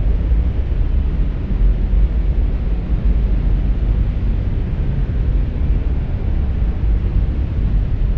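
Cinematic atmosphere sound effect: a deep, steady rumble with a faint hiss above it.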